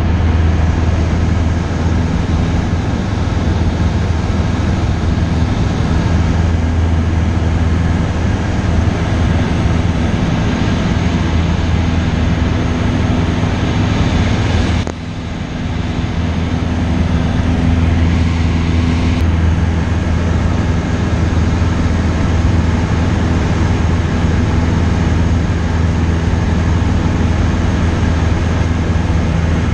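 Cessna 172's piston engine and propeller droning steadily in cruise, heard from inside the cabin. The drone dips briefly about halfway through, then runs on.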